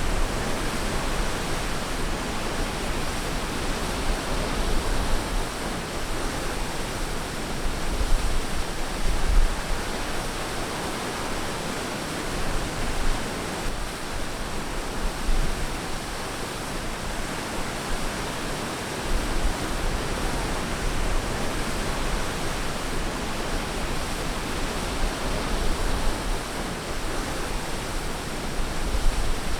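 Ocean surf on a beach: a steady wash of waves with deeper swells about eight seconds in and again later.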